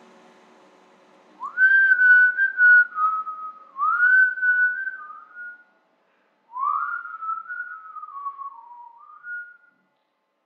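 A person whistling a short melody in two phrases, each opening with an upward slide into the tune. The last of the song's instruments fades out just before.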